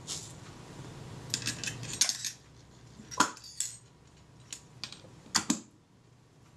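Light metallic clicks and clinks as a chrome cover plate is handled and set in place on a Kodak Retina IIIc camera body. A quick cluster of clicks comes about a second and a half in, then single sharp clicks spaced over the next few seconds.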